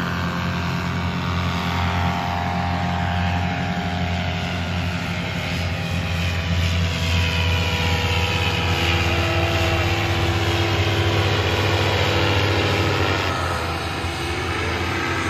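Paramotor engines and propellers running steadily as powered paragliders fly overhead, with a higher engine note bending in pitch about halfway through.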